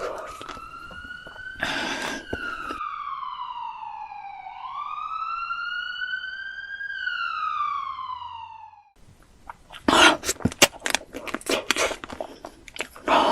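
A siren wailing in slow glides, falling, then rising and falling again, over about nine seconds, then cutting off suddenly. About a second later a run of loud, sharp, irregular noises starts.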